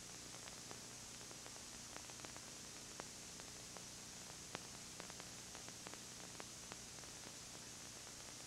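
Steady hiss from a silent videotape recording, with a faint low hum and scattered small clicks and crackles.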